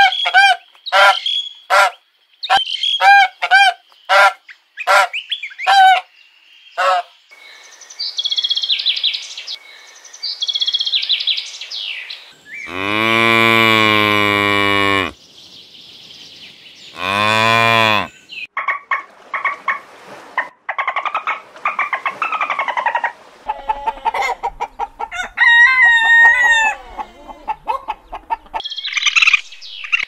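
A domestic goose honking in a quick run of short calls, then cattle mooing: one long, deep moo about 13 seconds in and a shorter one about 17 seconds in, followed by a mix of fainter animal calls.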